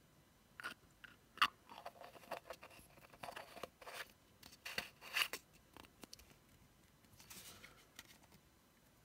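Small clear plastic cosmetic jar and its white plastic screw cap being handled: a run of irregular light clicks and plastic-on-plastic scrapes, then a short rubbing scrape near the end.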